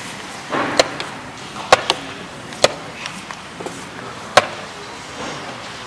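Wooden chess pieces set down on a wooden board and the buttons of a digital chess clock slapped during quick play: a string of sharp knocks and clicks, about five of them, irregularly spaced over the first four and a half seconds.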